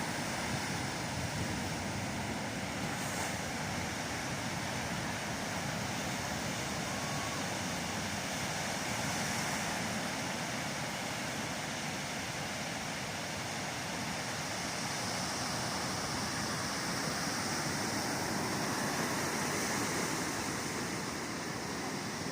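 Ocean surf breaking and washing onto the beach: a steady rushing hiss that swells a little now and then as waves come in.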